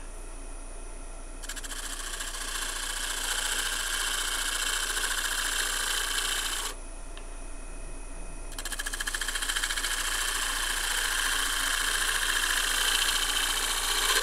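A standard scraper turned on its edge, shear-cutting the spinning wood of a natural edge bowl on a lathe and throwing off fine shavings. The steady rushing scrape comes in two long passes: from about a second and a half in to nearly seven seconds, then again from about eight and a half seconds on. Under it runs the lathe's steady hum.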